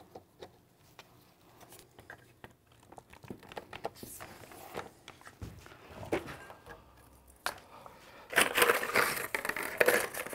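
Small clicks, knocks and scrapes of hand-tool work: a wrench turning a brass hose barb into a plastic blower housing and a clear plastic tube being fitted. A louder rustling clatter of handling comes in the last two seconds.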